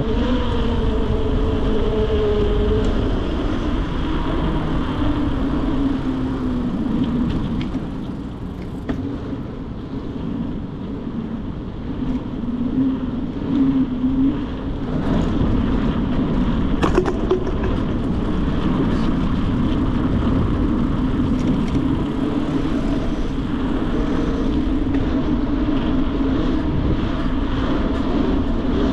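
Riding noise from a mountain bike on the road: a steady rush of wind over the camera's microphone, with a tyre hum whose pitch shifts with speed, dropping in the first few seconds. There is a quieter stretch a third of the way in and a sharp click about two-thirds through.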